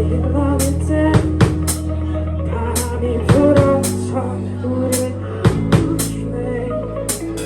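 Live band playing an instrumental passage, with drum kit hits (kick, snare and cymbals) over sustained bass notes and a wavering melodic line.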